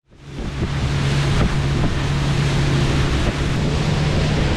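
Small open fishing boat running fast: a steady engine hum under wind buffeting the microphone and the rush of water along the hull and wake. Fades in at the start.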